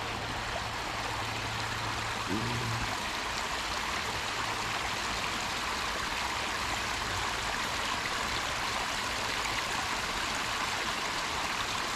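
Small creek running steadily, an even rushing trickle of flowing water.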